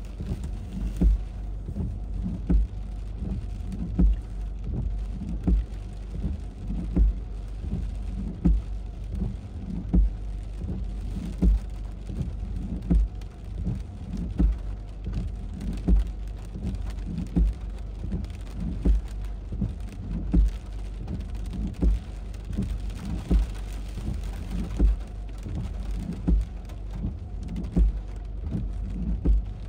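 Heavy thunderstorm rain falling steadily, with a short low thump about every second and a half.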